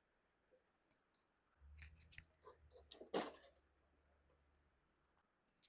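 Faint clicks and rustles of plastic cable guides and cords being handled on a copier, with one louder click about three seconds in, over a faint low hum in the middle.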